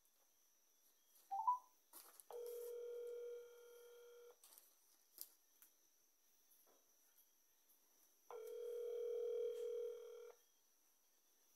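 Mobile phone call ringing out on speaker: a short beep, then the ringback tone sounding twice, each ring about two seconds long with about four seconds between them, as the call waits to be answered.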